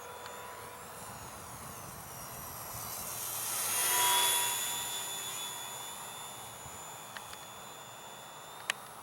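Electric motor and propeller of a Parkzone Ultra Micro P-40 Warhawk RC plane whining as it flies by, growing to its loudest about four seconds in, then fading and dropping slightly in pitch as it moves away. A single sharp click near the end.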